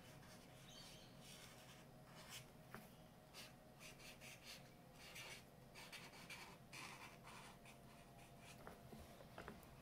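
Faint scratching of a marker nib on sketchbook paper: many quick, uneven pen strokes as a tag is drawn.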